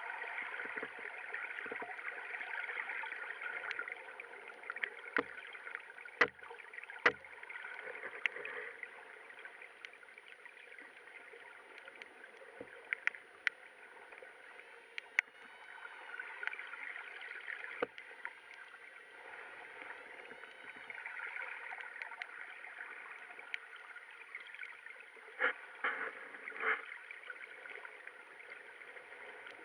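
Underwater ambience: a steady watery hiss with scattered sharp clicks and a few louder knocks.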